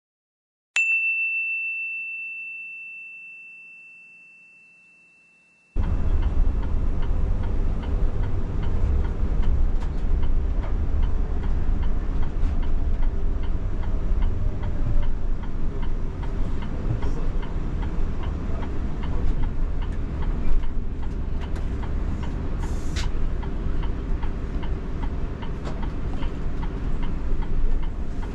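A single chime rings once and fades away over about five seconds. About six seconds in, the noise inside a moving bus starts abruptly: a steady low rumble of engine and road, with faint regular ticking.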